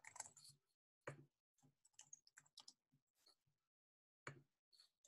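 Faint computer keyboard typing: scattered, irregular keystrokes.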